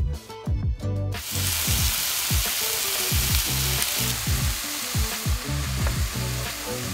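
Food sizzling in a hot pan, starting suddenly about a second in: scallops searing in a grill pan, then chopped vegetables sautéing as they are stirred in a skillet. A music beat runs underneath.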